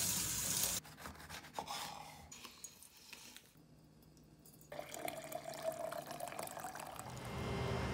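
Kitchen tap water running onto a lemon and into a stainless-steel sink for under a second, then light drips and small clicks. After a short silence, water is poured into a glass mason jar for a couple of seconds.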